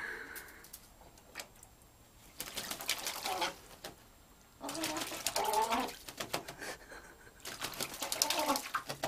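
American crow splashing in a tub of water as it bathes, in three bouts of a second or so each, making low calls that rise and fall in pitch during the splashing. A short, higher call sounds right at the start.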